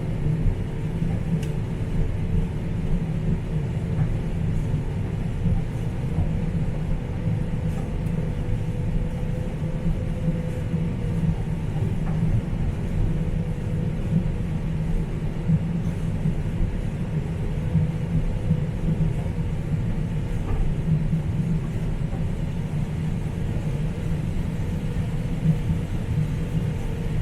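Combine harvester running steadily while harvesting soybeans: a constant low rumble with a steady engine drone.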